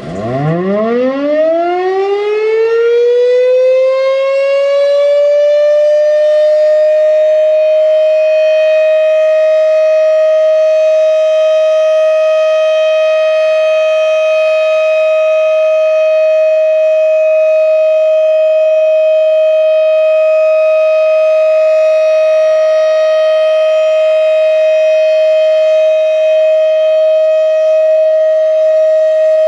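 Federal Signal Thunderbeam RSH-10 electromechanical siren winding up. Its pitch rises quickly over the first two seconds and levels off within about six, then it holds one steady tone: the full alert signal.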